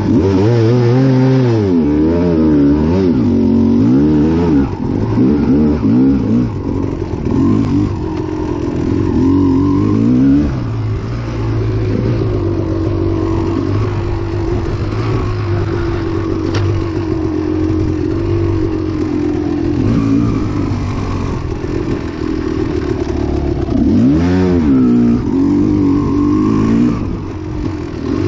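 Kawasaki KX250XC two-stroke dirt bike engine revving up and down as the throttle is worked on the trail. It swings quickly in pitch at first, holds a steadier note for a stretch in the middle, then gives another quick burst of revs near the end.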